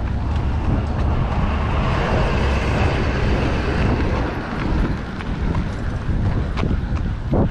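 Wind buffeting the microphone over a steady outdoor rumble, a little louder in the middle, with a couple of sharp knocks near the end.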